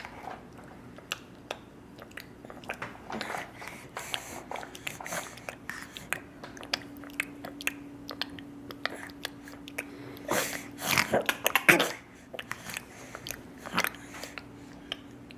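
A person making small wet mouth noises: irregular lip smacks and clicks like chewing, with a brief louder vocal noise about ten and a half seconds in.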